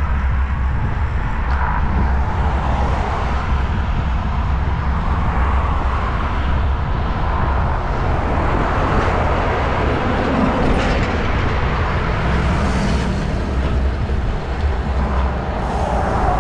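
Steady wind rush on the microphone of a camera moving with a road bicycle at riding speed, with road noise underneath.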